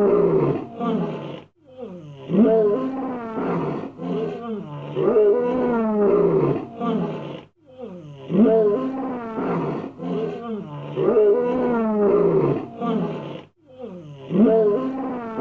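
Lion roaring sound effect: a run of deep roars and grunts that repeats as a loop about every six seconds, with a brief break between repeats.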